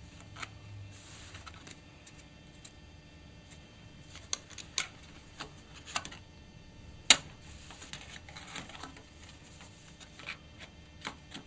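Titanium PowerBook G4's metal base plate being handled and fitted back onto the laptop: scattered clicks and taps of the thin plate against the chassis, the sharpest about seven seconds in.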